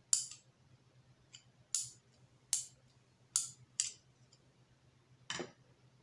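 A thin metal tool scraping across a small stamped metal plug contact in five short, sharp strokes, then one longer, heavier scrape near the end.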